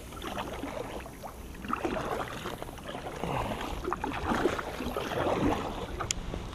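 Double-bladed kayak paddle stroking through the water: swishing, dripping splashes that swell and fade with each stroke, over a low steady rumble. A single sharp click near the end.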